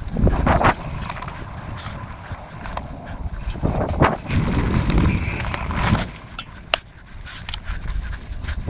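Full-suspension mountain bike ridden over a rough dirt trail: tyres rumbling and the bike rattling and clicking over bumps, with wind buffeting the microphone in louder gusts right at the start and again in the middle.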